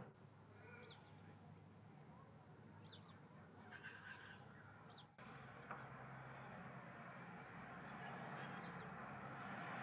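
Faint ambient background hiss with a few short, high bird chirps scattered through it. The background gets louder at a sudden change about five seconds in.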